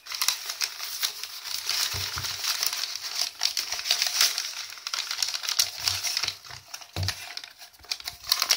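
Crumpled newspaper packing being unwrapped by hand: a dense, crackling crinkle of paper, with a few soft knocks of handling and a brief lull about six and a half seconds in.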